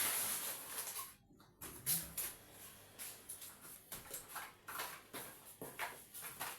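Handling of carded toy cars in cardboard-and-plastic blister packs: irregular rustling, crinkling and light knocks, with a brief break just over a second in.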